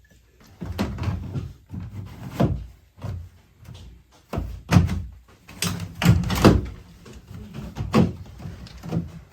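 Irregular knocks and thuds of washing machine parts being handled and fitted into place, the loudest about five and six seconds in.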